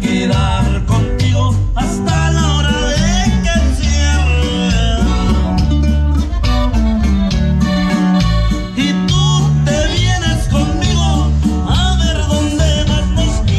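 Norteño band music: plucked strings over a steady bass and drum beat, with singing and wavering melody lines.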